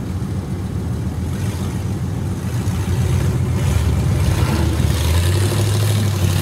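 Off-road 4x4 truck's engine running under load while crawling up a rock ledge, getting louder about halfway in and settling into a steady low drone near the end.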